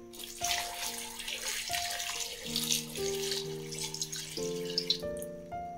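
Water poured from a jug into a metal cooking pot of cut yam and plantain, splashing and hissing for about five seconds before stopping near the end. Soft piano background music plays underneath.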